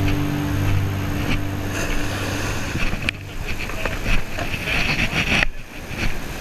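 Music playing for the first two seconds or so, then wind rushing over the microphone with the sea's surf behind it.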